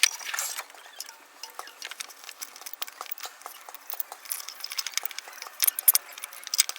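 Metal parts and tools clinking and tapping in quick, irregular clicks as a steel brace and its fasteners are handled and fitted, with a louder cluster of clinks near the end.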